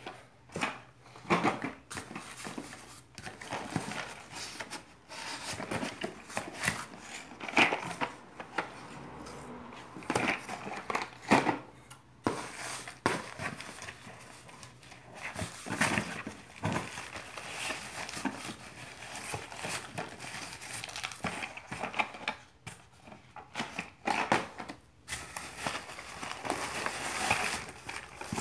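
Hands rummaging through shredded paper packing filler in a cardboard box: irregular crinkling and rustling, with frequent sharper crackles as the filler is squeezed and shifted.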